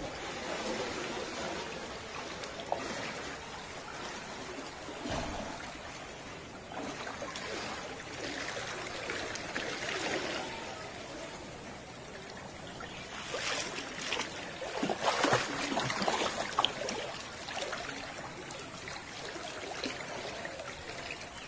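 Floodwater flowing and trickling steadily around posts and walls, with a spell of louder splashing about two-thirds of the way through.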